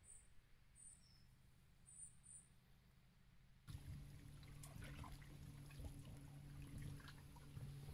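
Faint, short high chirps repeating a few times. Then, from an abrupt change about three and a half seconds in, shallow lake water lapping and trickling against a stone edge, with many small clicks over a low steady hum.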